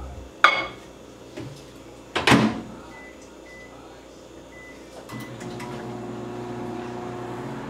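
Microwave oven being loaded and started: a ceramic mug knocks inside, the door shuts with a thud, a few short keypad beeps sound as the time is set, then the oven starts running with a steady hum.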